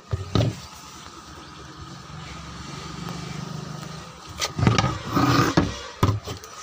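Knocks and rubbing from a 12-inch woofer and the phone being handled close to the microphone, loudest about half a second in and again in a cluster between four and six seconds. A low, steady hum runs underneath in the middle.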